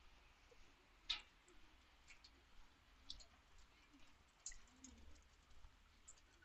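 Near silence with faint, irregular short clicks, the clearest about a second in.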